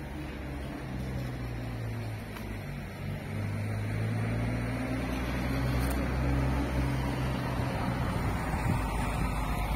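A motor engine running with a steady low hum that shifts in pitch a few times, getting a little louder about four seconds in.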